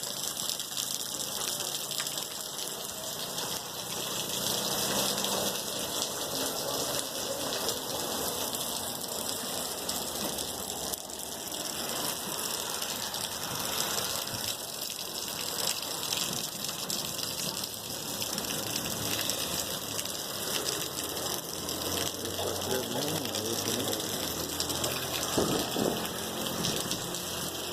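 Heavy rain pouring down steadily, a continuous hiss of falling and running water.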